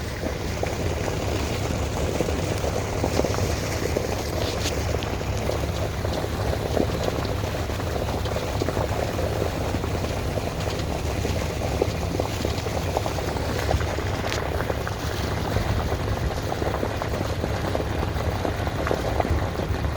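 Water bubbling and lapping steadily, with a constant low rumble underneath.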